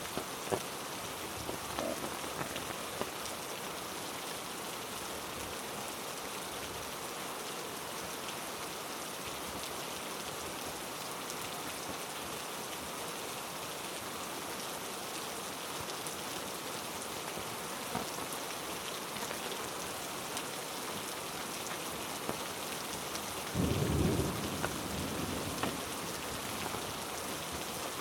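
Heavy rain falling steadily on rainforest foliage and ground, with a brief low rumble near the end.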